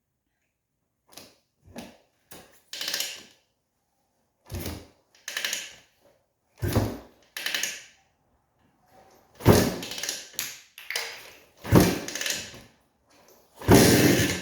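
Repeated kick-start attempts on a 1984 Honda ATC250R's air-cooled two-stroke single: about a dozen short, irregular bursts of sound with gaps between, as the freshly rebuilt engine is kicked over without settling into running.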